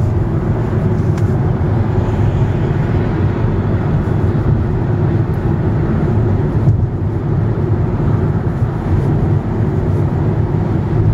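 Steady road and wind noise inside the cabin of a VW Touran converted to electric drive, cruising at motorway speed, with no engine sound under it.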